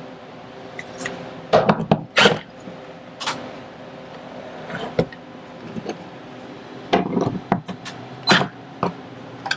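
Scattered knocks and clanks of a metal TV wall-mount bracket being handled and worked on against the wall, several sharp hits in short clusters over a faint steady hum.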